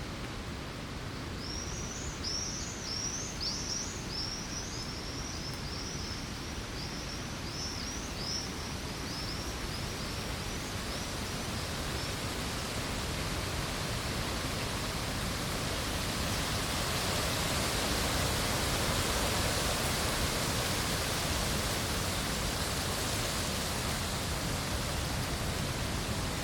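Lakeside outdoor ambience: a steady wash of hiss, with a small bird giving a quick run of short high chirps through the first half. From about halfway the hiss grows brighter and a little louder.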